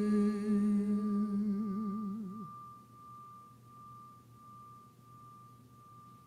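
Singing bowl ringing with one steady, clear tone that pulses slowly and fades, under a held sung note with a wobbling vibrato that dies away about two and a half seconds in.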